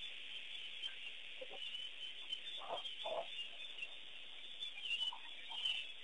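Wild birds calling: a few short, fowl-like calls, two close together near the middle, over a steady high-pitched chatter of birdsong.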